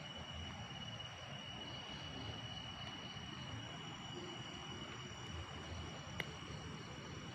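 Steady chorus of night insects such as crickets, a continuous high trill over a low hiss. A single sharp click about six seconds in.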